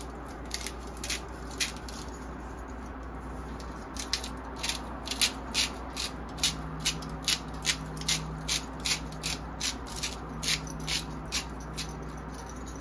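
Sea salt grinder being twisted over a roast: a run of short gritty crunching clicks, a few near the start and then about two a second from about four seconds in, over a low steady hum.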